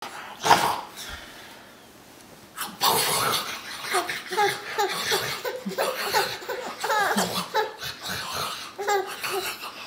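Baby laughing in a long run of short, repeated laughs, starting about two and a half seconds in, after a loud short burst near the start.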